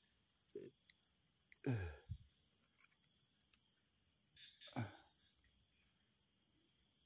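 Faint night insect chorus: crickets keeping up a steady high drone with short chirps repeating about one and a half times a second. Two brief sounds that slide down in pitch cut in, about two seconds in and again about five seconds in.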